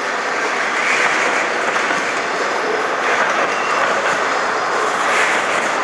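Coal hopper wagons of a freight train rolling past close by: a steady, loud rumble of wheels on rail, swelling about every two seconds as each wagon's bogies go by.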